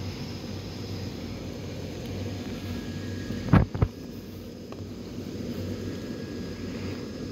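Steady low drone of the electric blower fans that keep the Halloween lawn inflatables inflated, with a quick double knock about halfway through.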